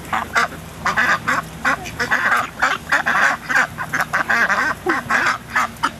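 A flock of white domestic ducks quacking loudly, many harsh quacks a second overlapping without a break, as they crowd round people to be fed.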